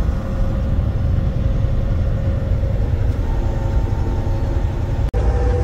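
Steady low rumble of a semi truck's engine and road noise heard from inside the cab while driving on the highway. The sound drops out for an instant about five seconds in.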